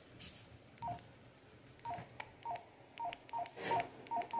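A quick, irregular string of about ten short touch-tone (DTMF) beeps coming through a weather radio broadcast, starting about a second in.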